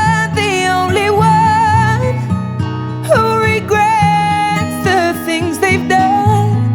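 Background music: a slow acoustic-guitar song with a wavering lead melody and no words sung.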